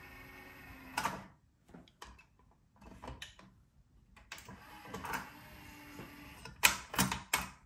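Powered cassette door mechanism of a Technics RS-TR474M2 tape deck closing and reopening, with a faint motor hum and mechanical clicks and clunks. The loudest cluster of clicks comes near the end. The deck is misbehaving here: the door cover had not been refitted correctly after the pinch-roller repair.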